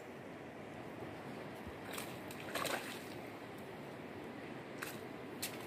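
Small splashes at the water's surface, a few short ones about two seconds in and again near the end, over a steady faint background hiss.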